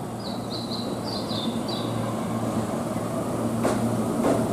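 Keihan electric train's running noise building steadily louder at the station platform, a low hum underneath, with two sharp clicks near the end. A small bird gives a quick run of short falling chirps in the first two seconds.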